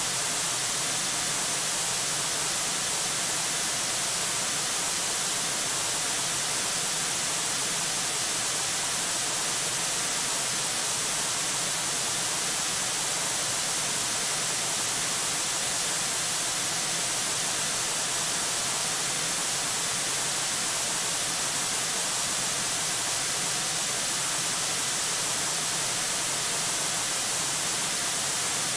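Steady hiss of static, strongest in the high frequencies, with no calls, knocks or other distinct sounds standing out.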